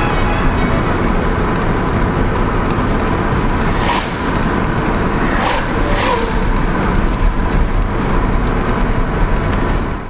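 Steady road and wind noise of a car driving at highway speed, with three sharp clicks in the middle; it fades out at the very end.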